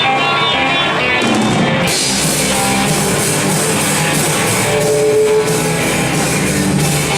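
Live rock band playing with electric guitar and drum kit; the sound grows fuller and brighter about two seconds in as the whole band comes in.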